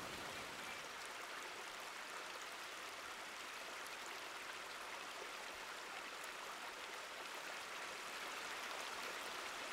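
Faint, steady rush of running water in a stream.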